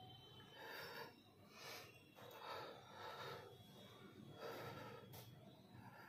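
A man's faint, strained breathing while he holds a plank: short breaths in and out, about one a second, from the effort of holding the position.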